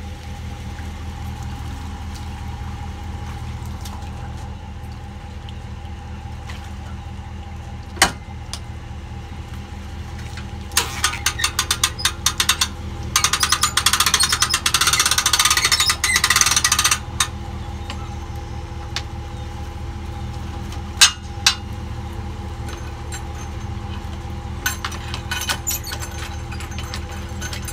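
Tow vehicle's engine idling steadily, with a sharp knock about eight seconds in, a burst of rapid clattering from about eleven to seventeen seconds in, and two more knocks a little after twenty seconds.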